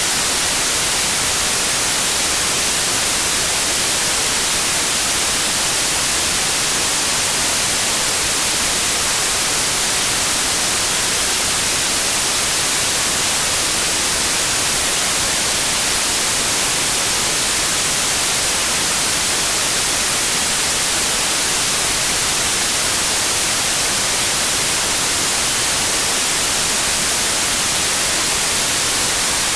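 Steady, unbroken white noise: an even hiss, brightest in the high frequencies, with no change in level.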